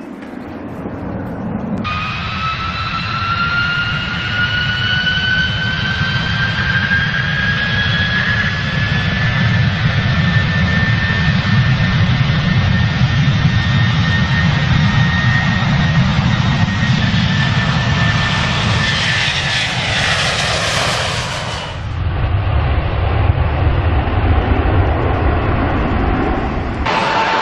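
Airbus A330 jet engines spooling up to takeoff power: a whine rising in pitch over a steady rumble, then holding at full thrust as the jet roar carries on through the takeoff and climb-out. The first two seconds hold a quieter jet sound from a landing airliner before a cut.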